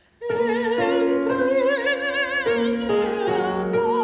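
Classical soprano singing an operatic line with a wide vibrato over instrumental accompaniment, starting abruptly about a quarter second in.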